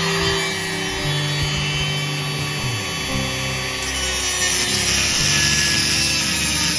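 Background music with a steady bass line, over the whir of a power tool; the high hiss of the tool grows stronger about two thirds of the way through.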